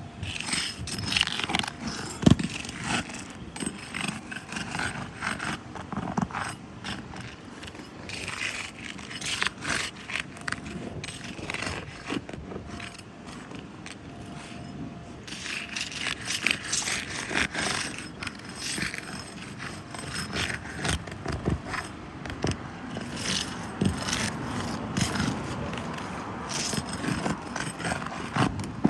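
Irregular scraping and clattering with scattered sharp knocks, the loudest about two seconds in, as of materials and tools being handled.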